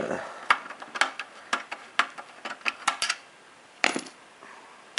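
Irregular sharp metallic clicks and clinks of a screwdriver working the screws out of an Xbox 360 Slim's metal chassis and the small screws knocking against metal, several a second at times, with one louder click near the end.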